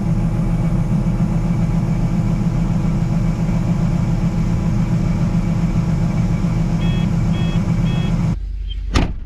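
Vehicle engine running steadily, with three short evenly spaced beeps near the end; then the engine sound drops away and a sharp click follows.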